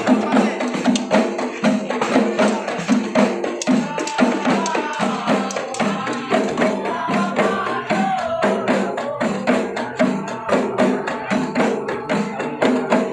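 Terbangan frame drums (rebana) of a dikir group beaten by hand in a steady, fast rhythm, with several voices chanting over them through the middle stretch.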